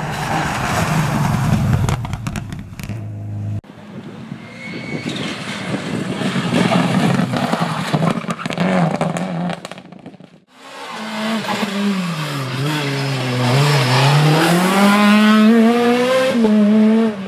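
Rally car engines at full revs in three short passes, with sudden breaks between them. In the last pass the engine pitch drops as the car brakes into a bend, then climbs again as it accelerates out, with some tyre squeal.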